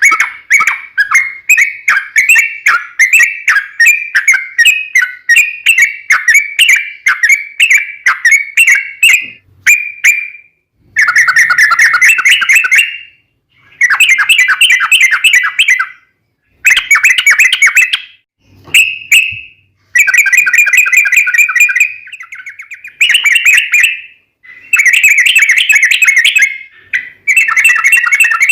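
Yellow-vented bulbul (trucukan) singing loudly: for about the first ten seconds a quick run of short notes, several a second, then bursts of long rapid trilling (ropel), each a couple of seconds long with short pauses between.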